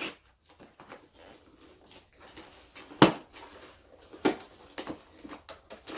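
Cardboard packaging being handled and pulled open by hand: scattered light clicks and rustles, with one sharp knock about three seconds in.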